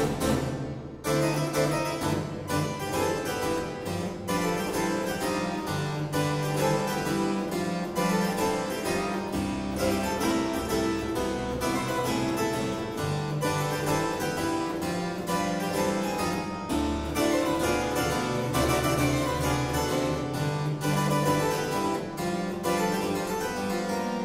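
Two-manual harpsichord playing a boogie-woogie solo: fast, dense plucked notes over a low bass line that moves every second or so.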